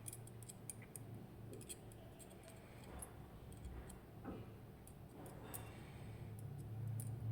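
Faint, scattered small metallic clicks and ticks of a disassembled Medeco M4 lock's parts being handled as the sidebar is taken out, over a low steady hum.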